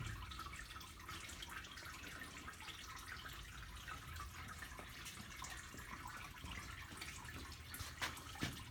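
Faint steady hiss with scattered small clicks, then two sharper clicks close together near the end.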